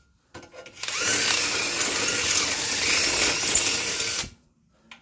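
Handheld power drill boring out a bolt hole in a motorcycle delivery box, widening it to take a 12 mm bolt. The drill starts about a second in, runs steadily for about three and a half seconds, and stops near the end.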